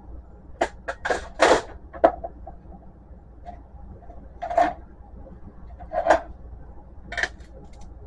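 Plastic and glass parts of an inkjet printer-scanner's scanner bed being handled and pried loose: short clicks and clatters, several close together in the first two seconds, then three more spaced a second or so apart.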